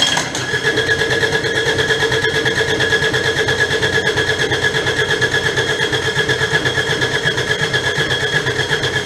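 Kubota D722 three-cylinder diesel being cranked over on its electric starter after the injection pump has been reinstalled, with a steady whine and an even beat of about five compression pulses a second. It starts suddenly and cuts off abruptly after about nine seconds.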